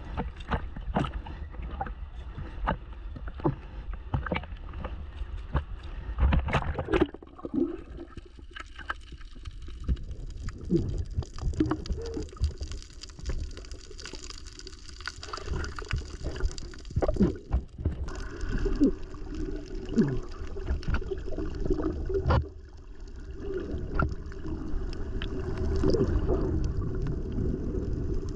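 Water splashing and gurgling as a hand scoop net is worked at the surface and then under water, with a muffled underwater rumble and scattered sharp clicks and knocks.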